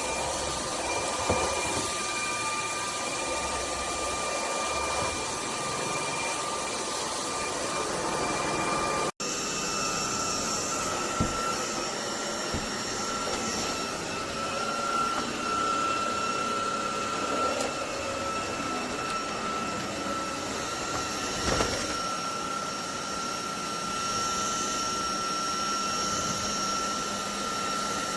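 Uninell UV3 cordless stick vacuum running, its motor giving a steady high whine over the rush of air. About nine seconds in, the sound breaks off for an instant and comes back with the whine slightly higher. There are a few light knocks along the way.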